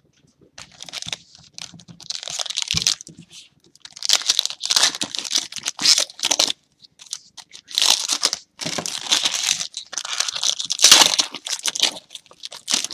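Wrapping on a trading card box being torn open and crumpled, in a string of crinkling, tearing bursts with short pauses between them.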